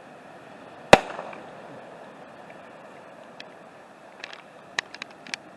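Festival ball aerial firework going off: one loud sharp bang about a second in, followed near the end by a few scattered smaller cracks.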